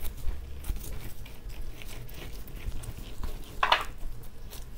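Pizza dough being kneaded by hand in disposable plastic gloves on a silicone baking mat: irregular squishing, rustling and soft slaps, with one louder, sharper noise about three and a half seconds in.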